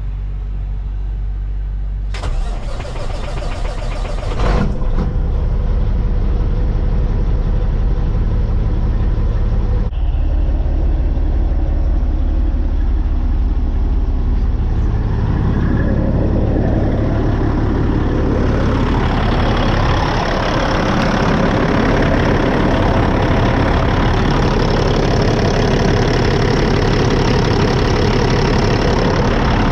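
Caterpillar C-15 diesel engine of a Kenworth T800 semi running, heard from the cab. A two-second burst of hiss comes about two seconds in, and from about fifteen seconds in the engine grows louder and stays up.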